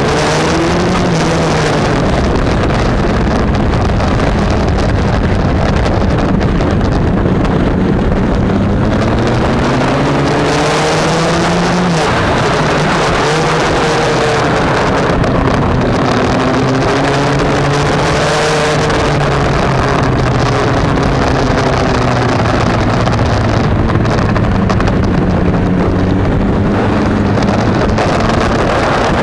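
Yamaha MT-09's three-cylinder engine revving up and falling back again and again as the motorcycle accelerates and slows through corners, under heavy wind noise on the microphone.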